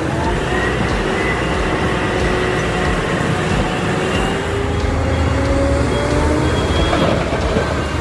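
CAT 992G large wheel loader's 3508 diesel engine running steadily, with a whine that drifts slowly up and down in pitch.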